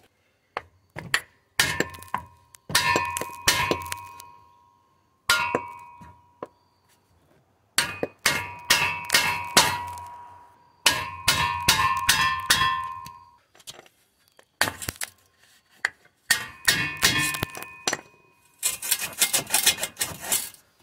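Hammer blows driving a rag-wrapped wooden block against a 2016 Dodge Charger Hellcat's stock exhaust tip to loosen it on the pipe, each hit leaving the metal tip clanging and ringing. The blows come in bursts of several quick strikes with short pauses between, the fastest run near the end.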